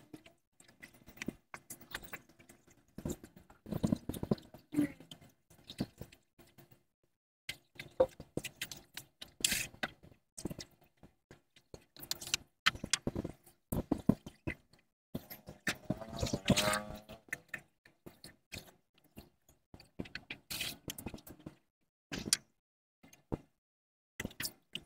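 Intermittent handling noises of foam pieces and a glue can being worked on a motorcycle seat base: short scrapes, taps and rustles with quiet gaps between, and a longer rasping scrape about two-thirds of the way through.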